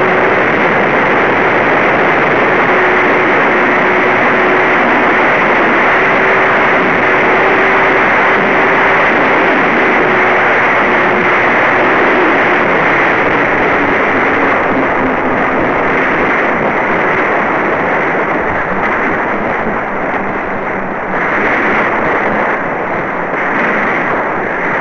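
Loud steady rush of airflow heard from onboard a Twinstar RC plane, with the faint hum of its electric motors under it. About halfway through the hum drops lower in pitch as the plane slows on approach.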